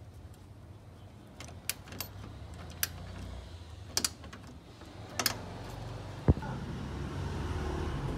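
Scattered sharp metallic clicks and clinks of a hand socket driver working the nut that holds a car horn to its mounting bracket, with the sharpest click about six seconds in. A low steady hum runs underneath.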